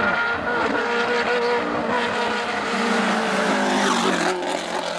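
Alpine A110 rally car's rear-mounted four-cylinder engine at high revs as the car comes up the road and passes close by, the engine note holding steady and strong. The hiss above it fades about four seconds in as the car goes past.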